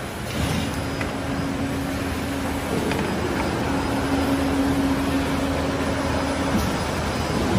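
Thick cardboard tube cutting machine running. A steady motor tone starts about half a second in and cuts off suddenly about a second before the end, over constant mechanical noise and a low hum.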